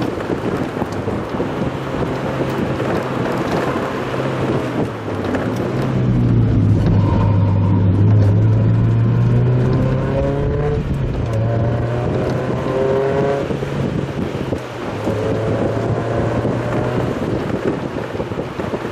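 Mazda Roadster's engine running as the car drives a mountain road, over a steady rush of wind noise. The engine note rises in pitch in several short sweeps through the middle, loudest about seven to ten seconds in.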